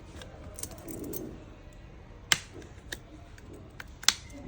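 Clips of a Redmi A1's back cover clicking loose as it is pried off round its edge: two sharp clicks, one about halfway through and one near the end, with lighter ticks between.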